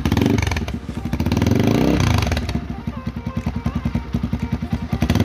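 Motorcycle engine running through a stock muffler with its silencer removed. It is blipped: the pitch rises to a peak about two seconds in, then falls back and settles into an idle with an even, pulsing exhaust beat.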